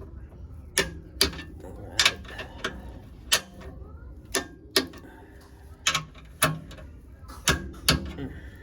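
Hand wrench clicking sharply and irregularly, about a dozen clicks, as the underguard's mounting nuts are tightened to torque.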